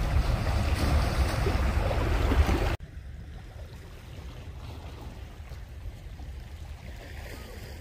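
Wind rumbling on the microphone over the rush of sea against rocks. About three seconds in it cuts off abruptly, leaving a much quieter, steady wash of wind and sea.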